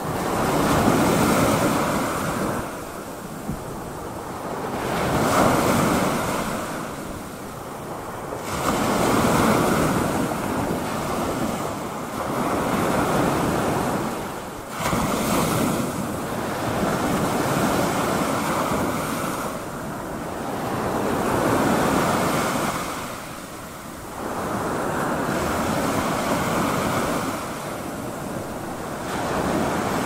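Ocean surf: waves breaking and washing in, the rush swelling and falling back every three to four seconds.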